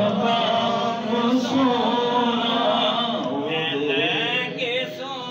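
Male voice chanting durood-o-salam, the devotional salutation to the Prophet, in a long, continuous melodic line.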